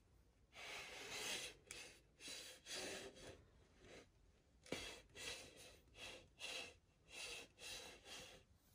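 A plate being turned on a table in short pushes, making a series of brief scraping rustles, two or three a second, with a pause midway and one sharp click about five seconds in.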